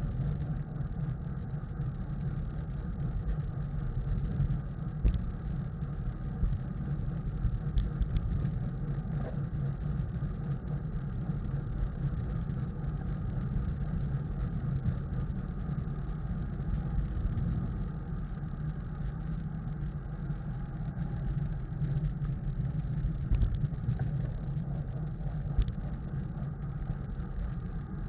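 Wind buffeting the microphone of a bike-mounted camera, together with tyre and road noise from a road bike riding at race speed: a steady low rumble.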